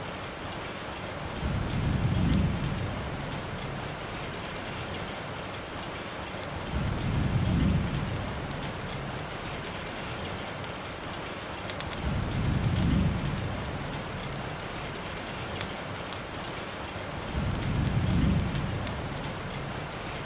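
Steady rain ambience, with a low rumble that swells and fades four times, evenly spaced about five seconds apart.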